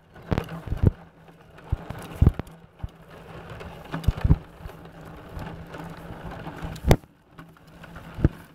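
Hard plastic wheels of a ride-on toy tractor rolling and rattling over a concrete sidewalk as it is pushed, with irregular knocks and bumps, the sharpest about seven seconds in.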